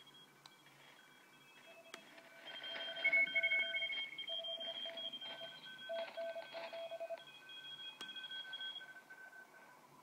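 Several Morse code (CW) signals on the 80-metre amateur band, heard through a software-defined radio receiver. They are tones keyed on and off at several different pitches at once, overlapping, over a faint hiss of band noise.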